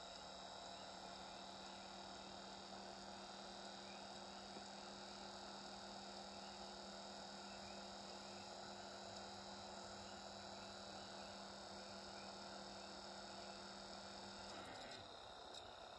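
Near silence: a faint steady electrical hum with a few held tones, which cuts off with faint clicks near the end.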